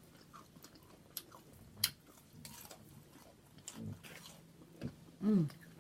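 Close-up eating sounds from a mouthful of fried seafood: wet chewing with scattered lip-smacking clicks. Near the end comes a short hum that falls in pitch.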